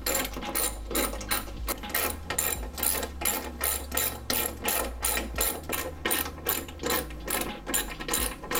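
Socket ratchet clicking in a quick, even run, about three or four clicks a second, as it backs out the 10 mm bolts holding a rear wiper motor.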